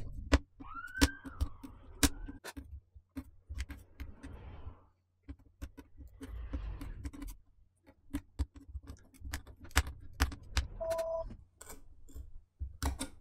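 Irregular sharp clicks and snaps of flush side cutters digging in and levering keyboard rivets out of a MacBook Air's aluminium top case, one after another. A brief pitched tone rises and falls about a second in, and another short tone sounds near the end.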